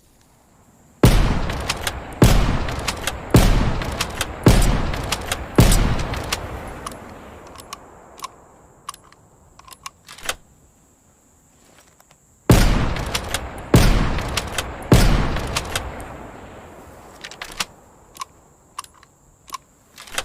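Remington Model 700 rifle firing: five shots about a second apart, each with a long fading echo, then a few small clicks, then three more shots followed by scattered clicks.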